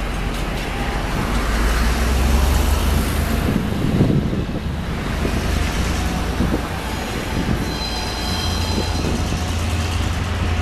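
ADK/ADB class diesel multiple unit running away up a gradient, its engine a steady low drone. A thin high squeal comes in briefly about 7 to 9 seconds in, typical of wheel flanges on a curve.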